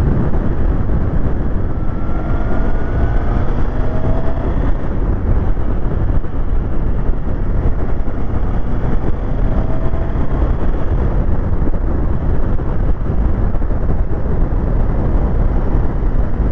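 Heavy wind buffeting on a motorcycle rider's helmet-mounted microphone at riding speed, a loud steady low rumble that drowns most else; the wind hitting the helmet is what causes the noise. A faint motorcycle engine note rises underneath a few times as the bike accelerates.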